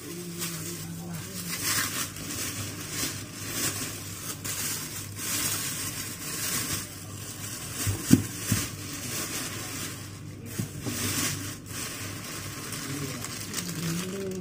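Thin plastic carrier bags rustling and crinkling as groceries are lifted out and handled, with a sharp knock about eight seconds in as something is set down.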